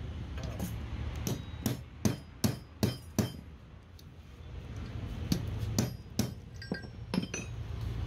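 Hammer tapping on the metal parts of a starter motor: a run of six sharp taps at a little over two a second, a pause of about two seconds, then five more taps slightly further apart.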